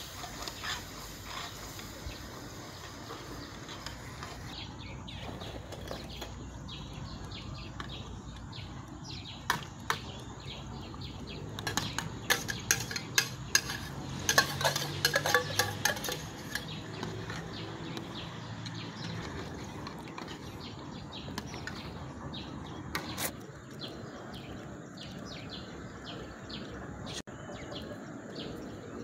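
A metal spoon stirring, scraping and clinking against a metal cooking pot, with a run of rapid, louder clinks about halfway through.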